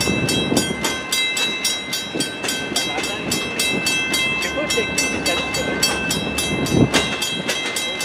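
Freight cars rolling past on the rails with wheel clatter and rumble, while a level-crossing signal bell rings rapidly and steadily. A louder clunk from the passing cars comes near the end.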